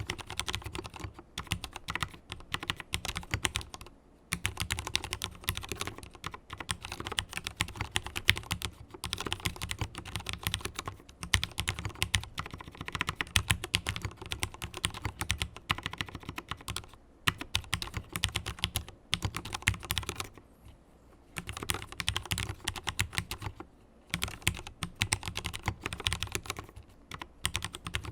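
Mechanical keyboard with fully lubricated Cherry MX Black linear switches being typed on, in fast runs of keystrokes broken by a few short pauses.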